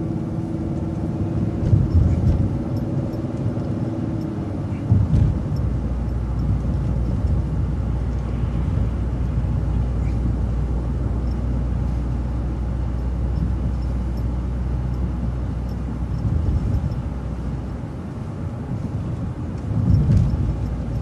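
Transit bus running, heard from inside. A steady whine fades out about four seconds in, a steady low hum runs through most of the middle, and a few louder jolts come at about 2, 5, 16 and 20 seconds.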